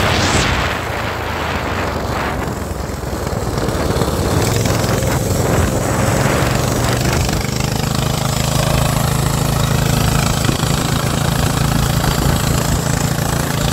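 Small engine of a motorized kicksled running under way, driving the rear wheel through a chain. It eases off about a second in, picks up again from about four seconds, then runs steadily.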